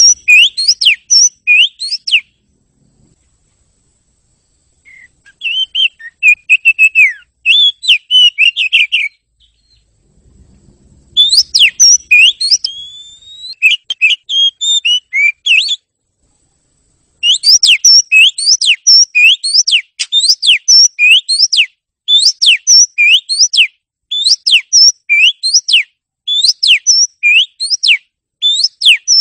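Oriental magpie-robin (kacer) singing loud whistled song in bouts separated by short pauses. Halfway through it settles into a long fast run of the same sweeping note repeated over and over.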